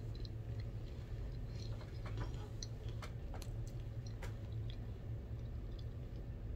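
A person chewing food quietly, with scattered faint wet clicks and ticks from the mouth, over a steady low room hum.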